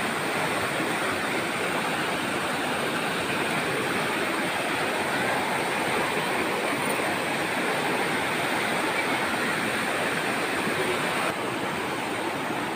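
Fast-flowing, swollen river rushing steadily, a little quieter near the end.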